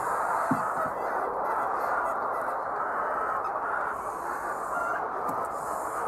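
A crowded flock of white laying hens clucking and calling all at once, a dense, steady chatter of many birds.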